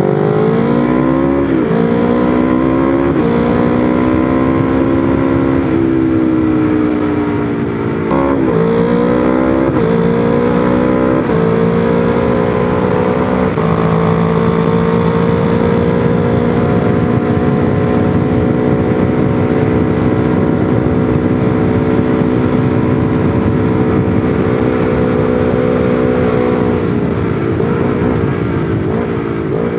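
Honda CBR250RR parallel-twin engine heard from the rider's seat while under way. The engine pitch climbs and drops back at each of several gear changes through the first dozen seconds or so, then holds steady at cruising speed, and wavers and falls near the end as the throttle eases off.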